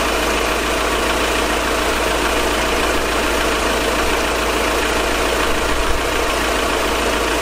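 2014 VW Crafter van's four-cylinder diesel engine idling steadily, heard from underneath the van. It is running on freshly changed oil while being checked for leaks.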